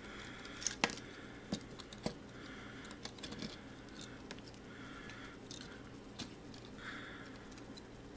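Faint, irregular clicks and light rattles of a plastic transforming action figure's parts being handled, folded and pressed together, with a few sharper clicks in the first two seconds.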